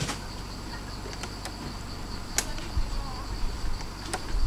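A steady high-pitched insect drone in forest, broken by a few sharp clicks and low rumble of handling noise.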